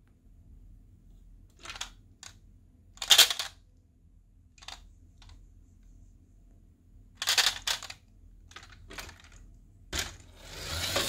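Toy die-cast truck loaded with marbles being handled: a series of sharp clicks and knocks, the loudest about three seconds in, as it is lifted and set down and the marbles clatter in its bed. Near the end a longer rattling rush as it is pushed rolling away.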